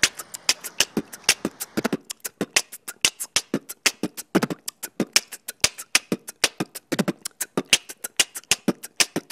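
Percussive background beat in a beatbox style: a fast, rhythmic run of sharp clicks and snaps, several a second, with a few deeper thumps.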